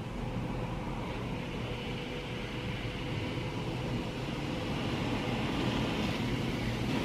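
Laserwash brushless in-bay car wash running, heard from inside the car: a steady machine hum with water spray hissing against the body, growing a little louder near the end.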